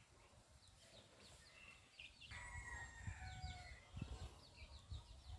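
A rooster crowing faintly about two seconds in, over faint chirping of small birds.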